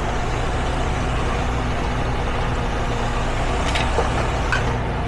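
A large vehicle's engine idling steadily, a low even rumble.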